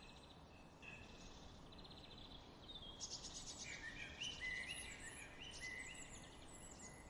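Faint forest ambience with birds calling: short repeated whistled notes and rapid trills over a low hiss, busier from about the middle on.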